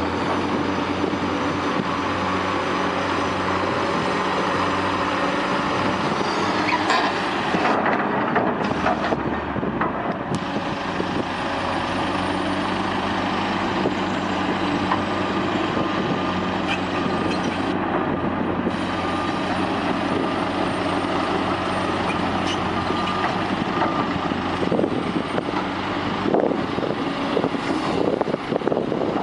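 Diesel engines of a Caterpillar tracked excavator and John Deere crawler dozers running steadily under load, with a few scattered knocks. The engine sound changes abruptly a few times.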